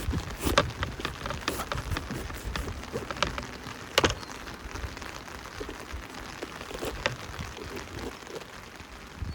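Steady rain falling, with heavy drops striking a surface in scattered sharp taps; the sharpest tap comes about four seconds in, with others near the start and about seven seconds in.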